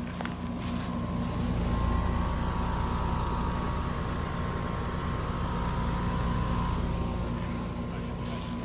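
Residential heat pump outdoor unit running in cooling mode: steady compressor hum under the rush of the condenser fan.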